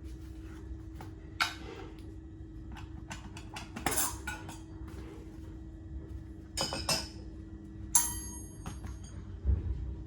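Metal clinks and knocks as parts of a meat slicer are handled, about six separate strikes, one ringing briefly about eight seconds in, over a faint steady low hum.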